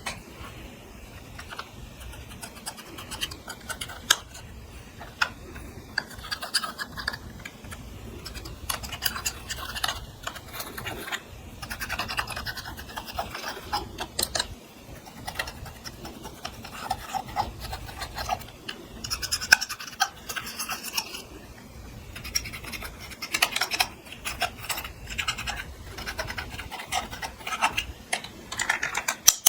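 Clear slime being mixed with makeup and glitter: many irregular sticky clicks and crackles with some scraping in between.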